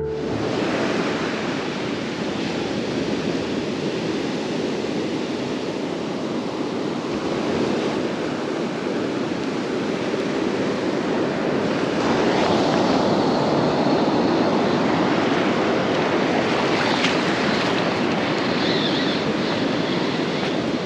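Ocean surf breaking and washing up a sandy beach: a steady rush of noise that gets a little louder about twelve seconds in.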